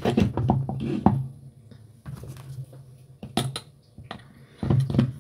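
Light clicks and knocks of a pistol and a small metal tool being handled: a quick run of clicks at the start, a few single clicks later, and more near the end.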